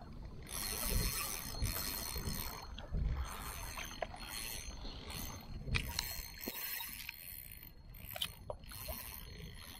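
Small sea waves washing and splashing against shoreline rocks in surges every second or two, with a few low thumps. Underneath, a small spinning reel being wound in as the lure is retrieved.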